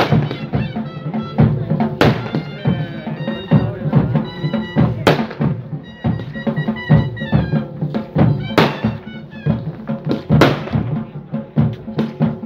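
Traditional Pahari temple band playing for a deity's palanquin procession: drums beaten steadily, with a big stroke every two to three seconds, and a wind instrument playing short, high, wavering phrases.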